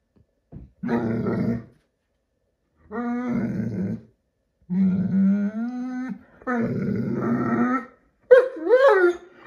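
Great Dane puppy growl-grumbling in a run of drawn-out, low, moaning calls, about one every second or two. Near the end it switches to a few higher whines that slide up and down.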